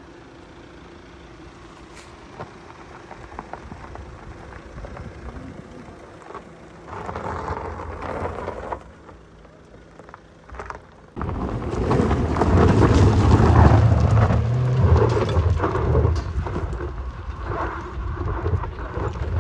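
Jeep Compass driving over off-road terrain with its engine running under load. Fairly quiet at first, with a brief louder spell about seven seconds in, then a loud, steady low rumble from about eleven seconds on.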